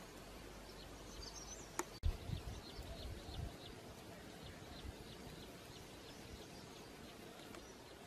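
Quiet outdoor ambience with a run of short, high chirps. A sharp click and then a few low thumps come about two seconds in.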